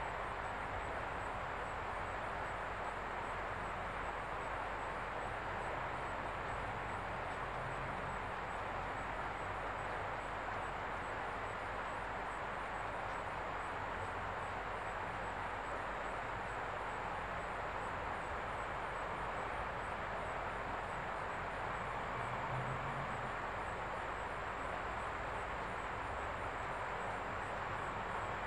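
Steady outdoor ambience: an even hiss with a faint, high, steady whine above it and no distinct events.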